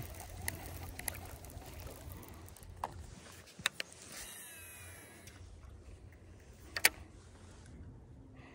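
Steady low hum of a fishing boat's motor with a few sharp clicks of fishing tackle. About four seconds in comes a short high whirr falling in pitch, the sound of line paying off a spinning reel on a cast.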